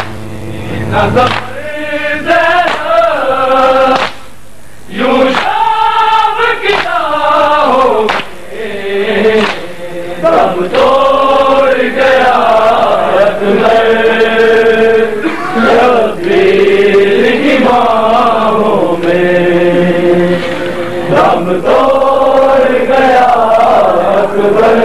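Male voices chanting a noha, a Shia mourning lament in Urdu, in a drawn-out melody with long held notes. The singing breaks off briefly about four seconds in.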